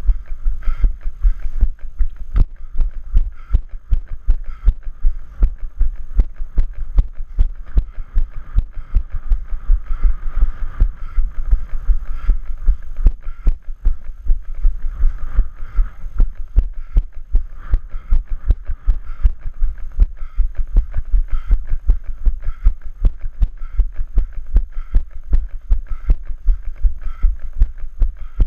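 A runner's footfalls on a dirt trail, a quick steady beat of thuds picked up by a camera carried on the runner, with a low rumble of movement between steps.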